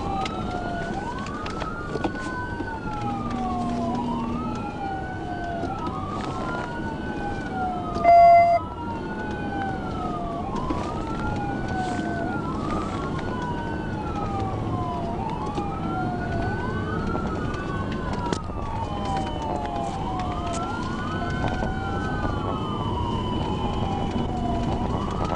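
Police car siren wailing during a pursuit, rising and falling about every two seconds over engine and road noise. A short loud beep comes about eight seconds in.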